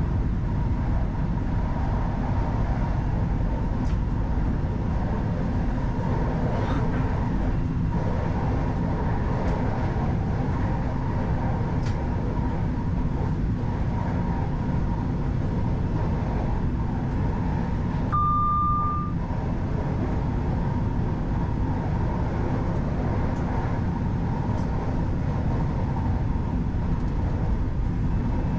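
Class 331 electric multiple unit running along the line, heard from the driver's cab: a steady rumble of wheels on rail with a faint steady whine. About two-thirds of the way through, a single short electronic beep sounds in the cab for about a second.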